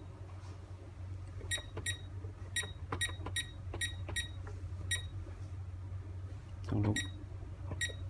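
Visonic PowerMax Express alarm control panel keypad beeping once for each key press as a phone number is entered digit by digit: a quick run of short high beeps, then two more spaced out near the end, over a steady low hum.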